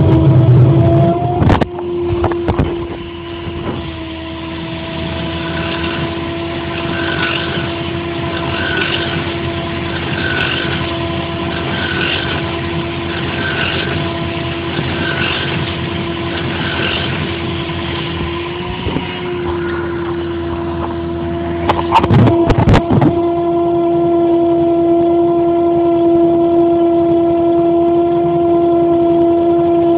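Crane truck running with a loud, steady whine, dipping briefly in pitch twice, with metal clanks from the well pipe near the start and a louder burst of clanking about two-thirds of the way through.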